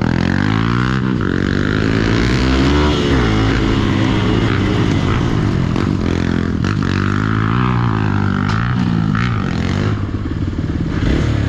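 Hero XPulse single-cylinder motorcycle engine revving up and down repeatedly under load while climbing a steep dirt trail. A few sharp clatters come in the second half.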